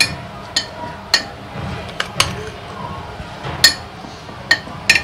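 Metal spoon clinking against a bowl and a glass jar while powdered sugar is spooned into the jar: about eight sharp, separate clinks at uneven intervals.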